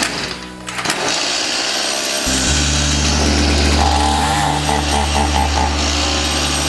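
Stihl MS 180C chainsaw's small two-stroke engine starting about two seconds in and then running steadily; the owner says it needs a carburetor adjustment.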